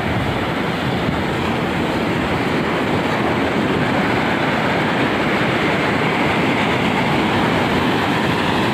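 Sea surf breaking and washing up onto the shore: a steady, loud rush of waves.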